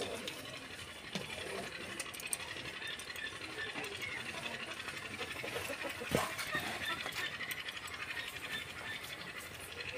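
Milk squirting from a cow's teats into a pail during hand milking, jet after jet in a quick, even rhythm. A single knock sounds about six seconds in.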